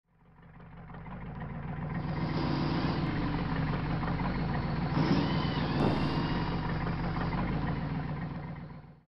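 Forklift engine running steadily. It fades in over about two seconds and fades out near the end, with a knock, a short rising whine about five seconds in, and a brief hiss just after.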